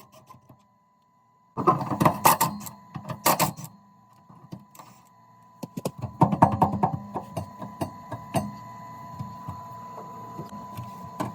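Hand tools and metal parts clanking, with runs of quick sharp clicks, as bolts on a transmission mount are worked loose. A steady faint tone and hum lie underneath.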